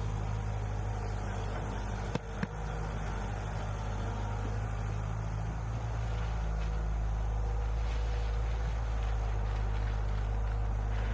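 A machine's engine running steadily at constant speed, with a couple of sharp knocks a little over two seconds in.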